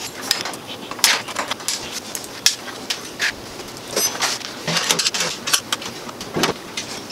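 Irregular clanks, knocks and clicks of heavy steel machine parts and hand tools being handled, lifted off and set down on a steel workbench top as the fixtures are taken off the machine.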